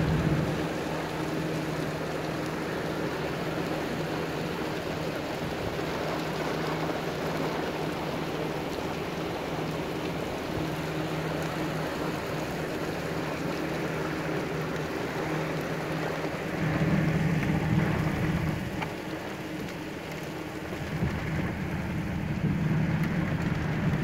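Heavy rain falling steadily. A low hum swells up about two-thirds of the way in and again near the end.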